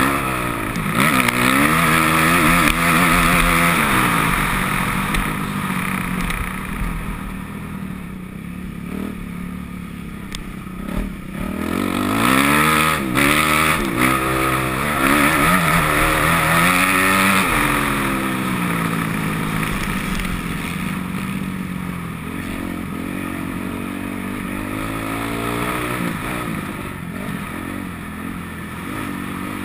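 Motocross bike engine ridden hard, its pitch climbing and falling over and over with throttle and gear changes. The engine is loudest a second or so in and again from about twelve seconds in, with an eased-off stretch in between.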